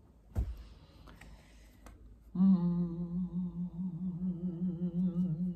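A woman humming one held low note with a slight waver, starting a little over two seconds in. Before it, a short soft thump and faint rustling.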